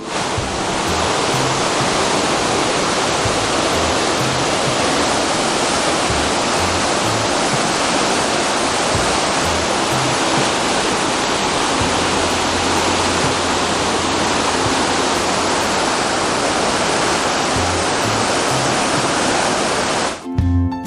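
Rushing creek water, a loud, steady rush that starts and stops abruptly.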